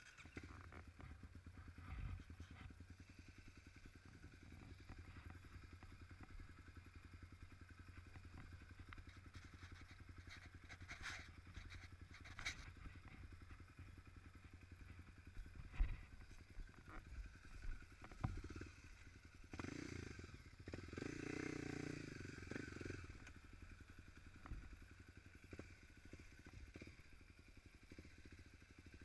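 Dirt bike engine running, mostly at a steady low idle, with a louder stretch of a few seconds about two-thirds of the way through.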